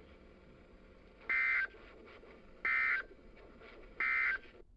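Emergency Alert System end-of-message code on NOAA Weather Radio: three short, identical bursts of the SAME digital data warble, a little over a second apart, marking the end of the warning broadcast. Faint receiver hiss lies between the bursts.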